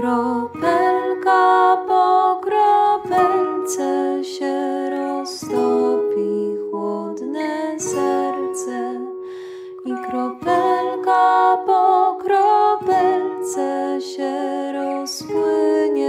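A woman singing a slow Polish Christmas lullaby in Polish, over a plucked-string accompaniment.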